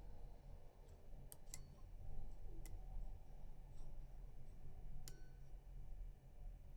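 Small, sharp metallic clicks from a rotor lock pick being worked inside a six-pin FAC lock, about five at irregular intervals, over a faint low hum.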